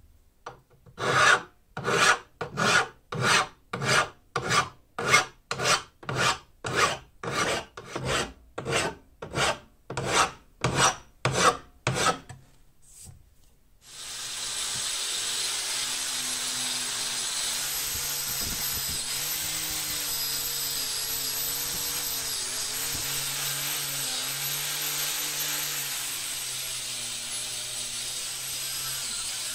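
Hand file scraping across the edge of a steel bar held in a vise: about twenty even strokes, roughly one and a half a second. About fourteen seconds in, an angle grinder starts and runs steadily on the steel frame, its pitch wavering slightly with the load.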